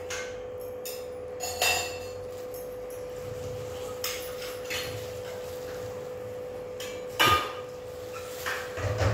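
A few scattered light clinks and knocks, the sharpest about seven seconds in, over a steady faint hum.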